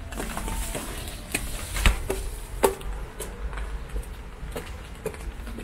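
Footsteps climbing concrete stairs: irregular sharp steps, two louder ones near the middle, over a steady low background rumble.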